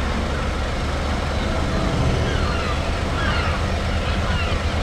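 Steady low rumble of road traffic ambience, with several short high chirps that fall in pitch over it.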